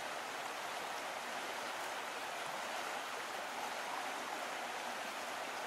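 Steady, even rushing noise like static or running water, with no speech or music.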